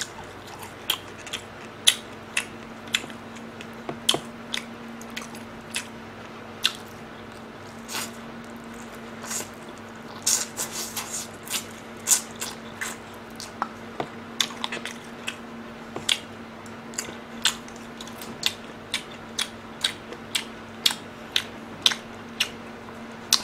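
Close-miked chewing of sauce-coated fried chicken: a run of wet mouth clicks and smacks, with a denser stretch of crunching about ten seconds in. A faint steady hum lies underneath.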